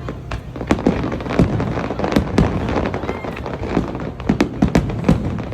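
Aerial fireworks bursting in a rapid, irregular string of bangs and cracks, about three a second, with low booms rumbling between them.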